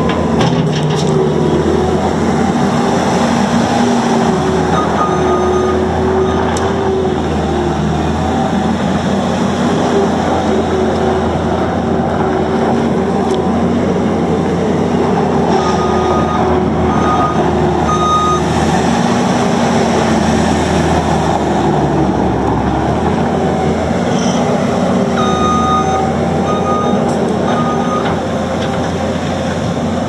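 2013 New Holland L220 skid steer loader's diesel engine running steadily as the machine drives and manoeuvres, its pitch wavering up and down. A backup alarm beeps in two short runs, once partway through and again near the end.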